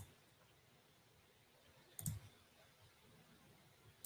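Near silence broken by a few short computer mouse clicks, about two seconds apart.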